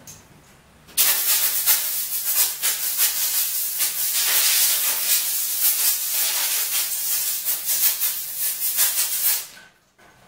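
Compressed-air blow gun hissing for about eight seconds, starting suddenly and cutting off near the end, its level unsteady as it blows out the leaf blower's air filter to clean it.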